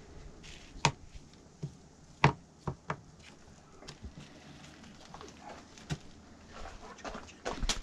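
Knife and meat being worked on a plastic cutting board while trimming venison: scattered sharp knocks and taps, the loudest about a second and two seconds in, and a quick run of small taps near the end.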